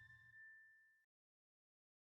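Near silence: the last faint ring of a chime-like note from background music dies away about halfway through, then total silence.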